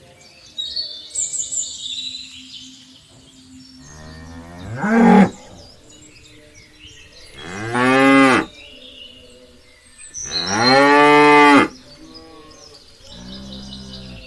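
Cows mooing: three long calls a few seconds apart, each rising then falling in pitch, the third the longest, and a softer one starting near the end. Birds chirp faintly near the start.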